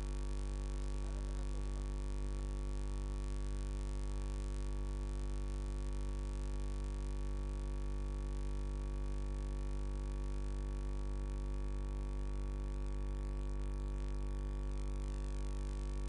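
Steady electrical mains hum with a stack of buzzing overtones, unchanging throughout.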